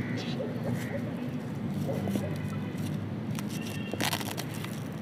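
Faint distant voices of players calling across the field over a steady low background rumble, with one brief sharp noise about four seconds in.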